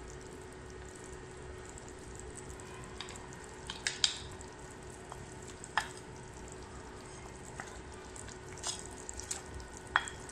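Bitter gourd and potato curry simmering in a wok with a steady low bubbling hiss. A few sharp clicks and clinks, the loudest about four, six and ten seconds in, come as fried climbing perch pieces are slid in off a ceramic plate held against the pan.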